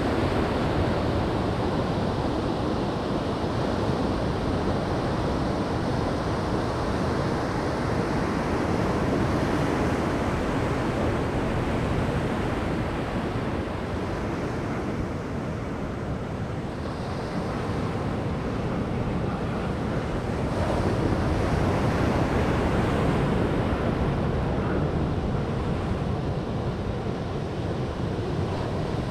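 Ocean surf breaking and washing up the shore in a continuous rush that swells and eases, with wind buffeting the microphone.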